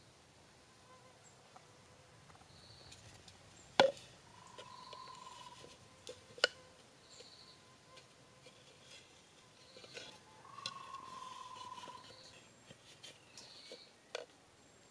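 Sharp wooden knocks as carved wooden pieces are handled and fitted into a bamboo tube trap: two loud clicks a few seconds apart and a smaller one near the end. A short high chirp repeats about once a second in the background, and a faint whistle-like tone is held for about a second, twice.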